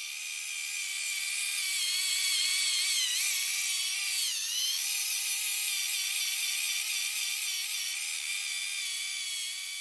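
Power sander running steadily with a high, whining motor note; its pitch dips briefly twice near the middle.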